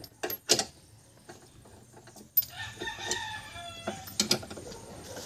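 A rooster crows once, one drawn-out call starting about two and a half seconds in and falling away at its end. A few sharp metallic clicks from parts being handled on a shock absorber's top mount come near the start and again near the end.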